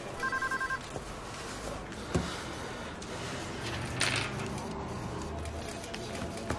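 A short burst of rapid electronic beeping, two tones pulsing about ten times a second, just after the start. This is followed by a single sharp knock and a later click as objects are handled on a desk, over a steady low room hum.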